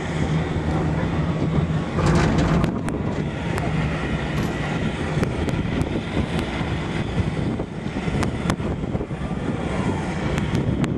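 Steady rumble of a ride in an open aerial-tram gondola: a low hum under a broad noise, swelling louder about two seconds in, with a few faint clicks scattered through.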